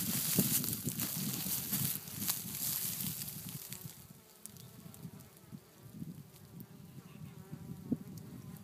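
Honeybees buzzing at the entrance of a wooden hive, with individual bees flying close past in wavering buzzes. A rustling hiss covers roughly the first half, then the buzzing stands out more clearly against quieter surroundings.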